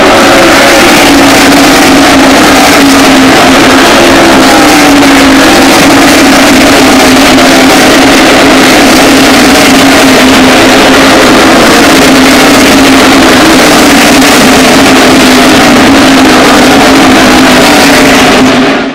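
NASCAR stock cars' V8 engines racing past the grandstand: a very loud, continuous roar, with engine notes that slowly slide down in pitch as the pack goes by.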